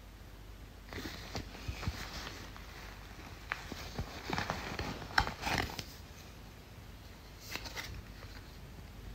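Rustling and light clicking of parcel packaging being opened and handled by hand, in a run of short sounds over about five seconds and again briefly near the end.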